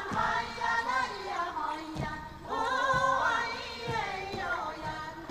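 A mixed group of men's and women's voices sings a traditional Taiwanese indigenous song, with no instruments. There are a few dull thumps of stamping feet.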